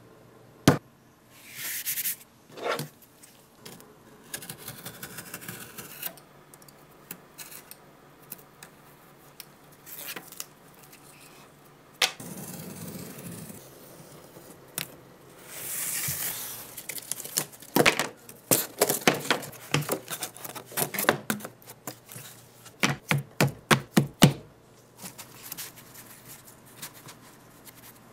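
Corrugated cardboard being handled and cut: a utility knife slicing along a steel ruler on a cutting mat, with sheets scraping and tapping on the workbench. There are separate knocks and scraping strokes, then a quick run of sharp clicks and taps in the second half.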